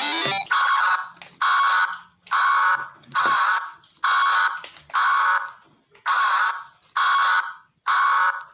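Electronic alarm tone of a mock Emergency Alert System warning, a harsh beep of about half a second repeating about once a second. It opens with a short falling tone at the very start.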